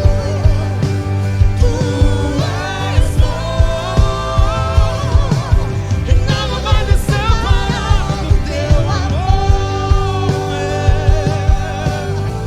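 Gospel worship song: a singing voice holding long, gliding notes over a band with bass and a steady drum beat.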